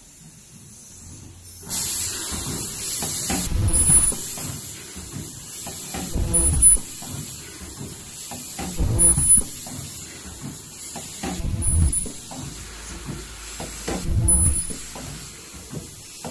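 Automatic KN95 mask production line running, getting louder about two seconds in: air hissing and mechanical thumps repeat in a cycle about every two and a half seconds, with a short high-pitched tone in each cycle.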